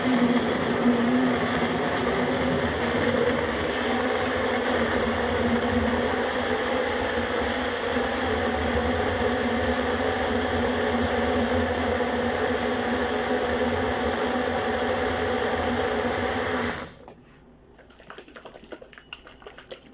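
Countertop blender running steadily as it blends a fruit smoothie, then switched off about seventeen seconds in. A few faint clicks and knocks follow.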